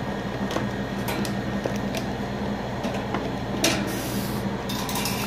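Electric stand fan's blade and motor shaft turned by hand: a dry rubbing whir with a few light clicks, over a steady low hum. The shaft is hard to turn, the sign of a hardened bushing or a worn shaft.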